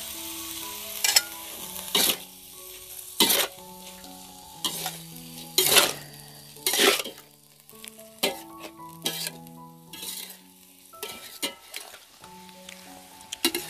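Sliced kencur leaves with anchovies and chilli stir-frying in a metal wok: a steady sizzle, with the metal spatula scraping and knocking against the pan about once a second.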